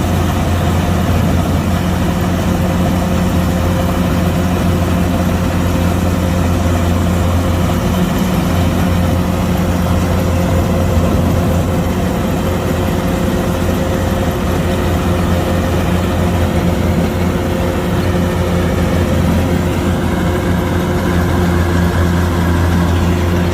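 Kubota DC105X combine harvester's diesel engine running steadily at a constant pitch and level.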